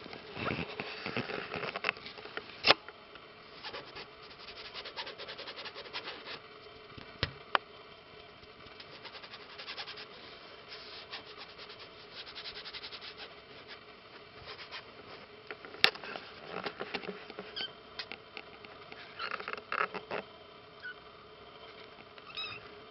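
Three-week-old British Shorthair kittens crawling about on a fabric blanket: a patter of scratchy rustles from their claws and paws, with a few sharp clicks. A few short, high kitten mews come through, most clearly near the end.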